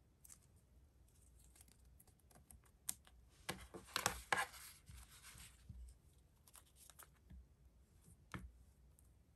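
Hands handling a clear plastic sleeve and small pieces of tape: soft crinkling and peeling, loudest for about two seconds in the middle, with light scattered taps and clicks around it.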